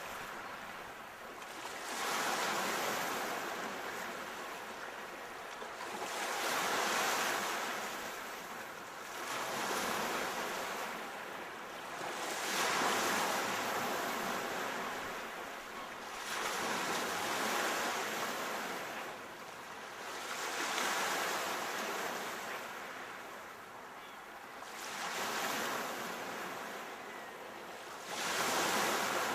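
Sea waves breaking on the shore one after another, each swell of surf rising and then washing away, about one every four seconds.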